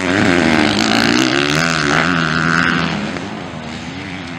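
Motocross dirt bike engines revving up and down as they race around the track, the pitch rising and falling with the throttle. The sound is loudest for the first three seconds or so, then fades as the bikes move away.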